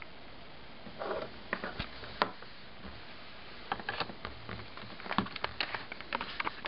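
Handling noise as cables are fitted into the ports on the back of an iMac G4's base: scattered clicks and short rustles. There is one sharp click a little over two seconds in, and a flurry of clicks near the end.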